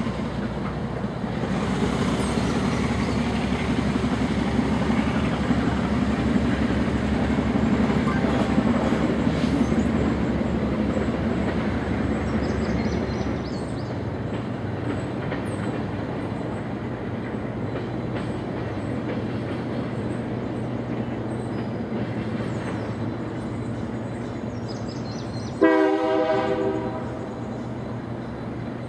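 Diesel switching locomotive working in a rail yard: a steady low engine rumble that eases off about 13 seconds in. Near the end comes one horn blast of about a second and a half.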